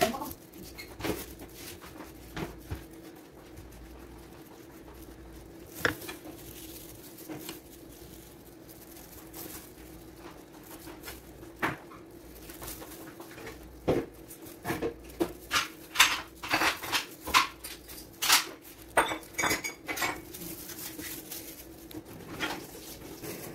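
Scattered taps and clinks of kitchen utensils and bowls on a tabletop, thickening into a quick irregular run of knocks in the second half, some ringing briefly, over a steady low hum.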